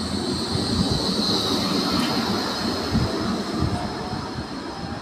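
Bombardier Flexity 2 tram running past close by and pulling away: wheels rumbling on the rails with a few low thumps, under a high steady squeal that is strongest about a second and a half in. The sound fades as the tram moves off.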